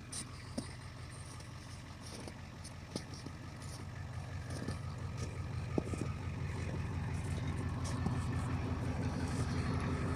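Truck engine running steadily with a low, even rumble that grows gradually louder, with a few faint clicks and knocks over it.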